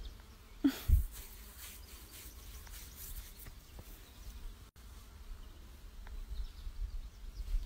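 Low wind and handling rumble on a phone microphone held close to the animal, with two sharp bumps about a second in.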